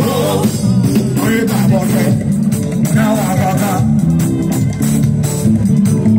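Live band music over the stage speakers, heard from within the crowd: a heavy bass line with guitar and a voice singing a wavering melody.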